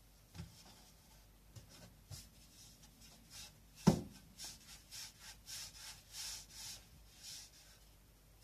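Hands rolling balls of bread dough on a wooden board: soft rubbing and brushing strokes, with one sharp knock just under four seconds in and a run of quick strokes after it.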